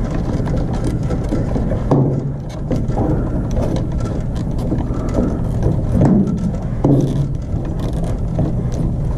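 Close handling noise of a wire nut (marrette) being twisted by hand onto four bundled ground wires: irregular scrapes, rustles and small clicks over a steady low rumble.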